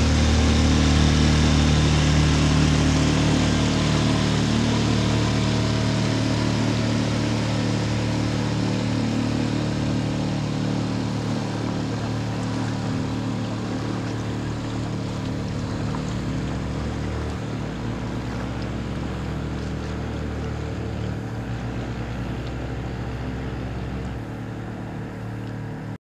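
Outboard motor on a small open boat running steadily at speed as the boat passes and draws away, its drone fading gradually throughout.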